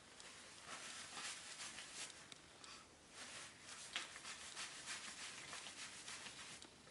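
Faint, irregular rubbing and scratching noise, in uneven strokes with no voice.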